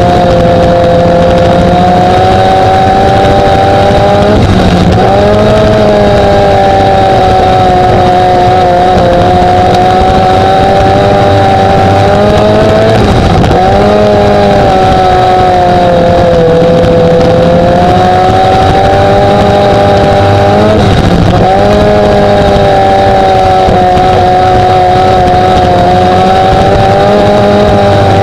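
A racing mini truck's engine and drivetrain running hard at speed, loud from under the car beside the rear differential. The engine note holds steady, then dips sharply and climbs back about every eight seconds, as the throttle is lifted and reapplied.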